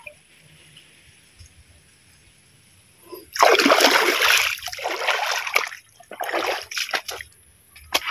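Shallow creek water splashing and sloshing in several loud bursts, starting about three seconds in, as the water is disturbed.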